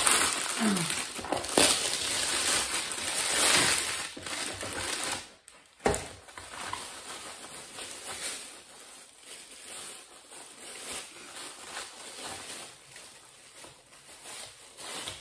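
Plastic packaging crinkling and rustling as a shrink-wrapped box is torn open and a plastic-wrapped hook strip is pulled out. It is loudest in the first few seconds, has a sharp knock about six seconds in, then goes on as softer rustling.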